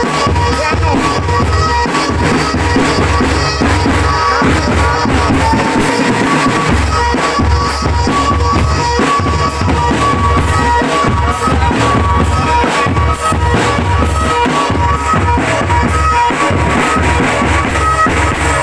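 Loud drumband music: a heavy, steady bass-drum beat with other drums under sustained melodic instruments, playing without a break.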